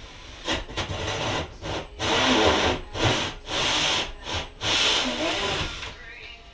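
Cordless drill spinning a hole saw into the ceiling panel, cutting in a run of stop-start bursts of half a second to a second each.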